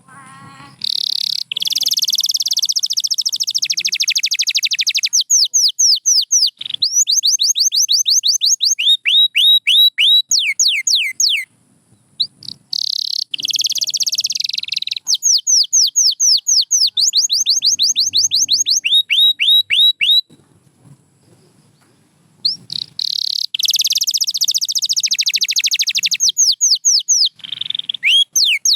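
Domestic canary singing: bouts of fast rolling trills, each followed by runs of repeated downward-sweeping whistled notes at about four a second. There are two short pauses between bouts.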